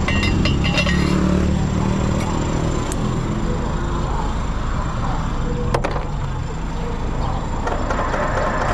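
Tow truck's engine idling steadily, with light metallic clinks in the first second or so and a single sharp metal clank about six seconds in as the wrecker gear is handled.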